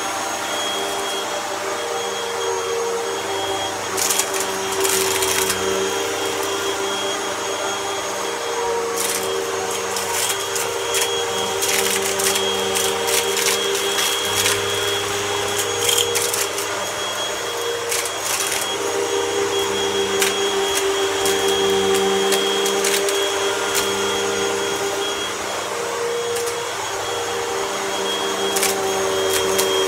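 Vacuum cleaner running steadily with its motor whine, sucking up debris that crackles and crunches in short spells, clustered about four to six seconds in, again around ten to thirteen seconds, and near the end.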